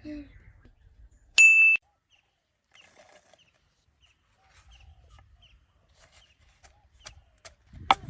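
A short, loud, steady high-pitched ding about a second and a half in, followed by faint short chirps and a few sharp clicks near the end.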